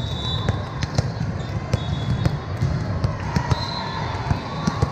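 Volleyballs being hit and bouncing on a gym floor: a string of irregular sharp smacks, with brief high squeaks in between.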